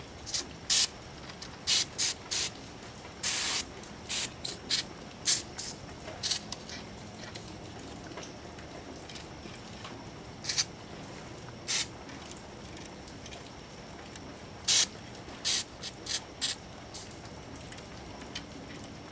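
Aerosol spray grease hissing out of its can in about twenty short bursts, in clusters with a quiet stretch in the middle, as grease is sprayed onto a roller rocker arm.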